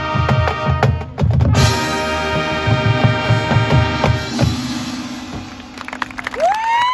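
Marching band brass and drumline playing, with rapid low drum hits under sustained brass chords and a brief break about a second in. The music thins out in the last seconds, and near the end a single tone rises in pitch and holds.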